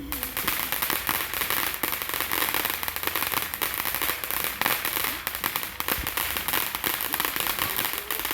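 Consumer fireworks crackling: a dense, rapid run of small pops that starts suddenly and keeps going, with one deeper thump about six seconds in.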